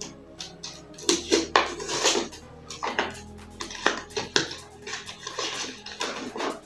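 Hard clear-plastic packaging of a GoPro Hero 8 retail box handled and pried open: an irregular run of clicks, knocks and crinkling scrapes, starting about a second in.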